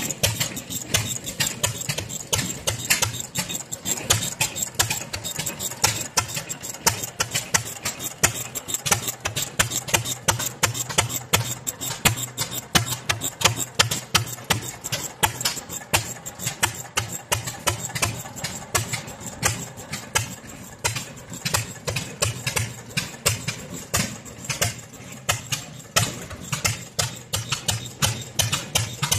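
Antique stationary gas engines running, a quick, uneven stream of sharp exhaust pops and clicks over a low engine note.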